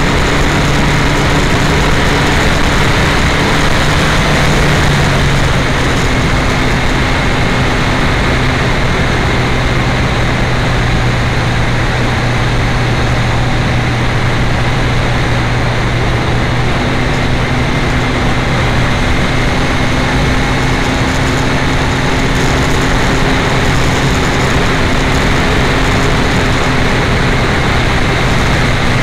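Yamaha FZ1 motorcycle's inline-four engine running at steady cruising revs while riding, under heavy wind noise on the uncovered camera microphone. The engine note drops a little about five seconds in.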